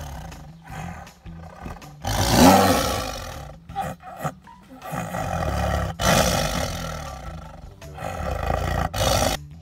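Siberian tiger growling in a series of loud growls over raw meat held under its paws, the loudest about two seconds in.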